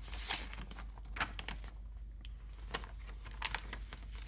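Irregular light clicks and rustles of hands handling a car-stereo wiring harness with its plastic connectors and wires.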